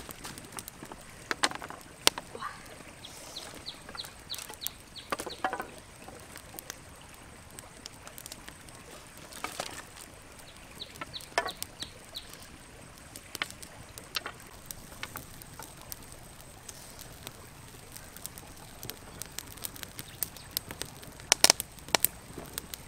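Wood campfire crackling, with scattered sharp pops and snaps, the loudest near the end. Twice a bird gives a quick run of high, clipped notes, about five a second.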